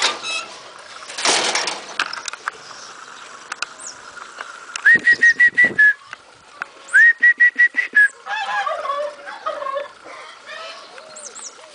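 Two quick runs of short, high, even-pitched whistle pips, about six in each run. They are followed by a litter of six-week-old Beauceron puppies whining and yelping.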